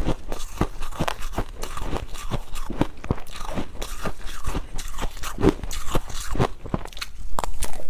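Ice being bitten and chewed close to the microphone: a steady run of sharp, irregular crunches and cracks as the pieces break between the teeth.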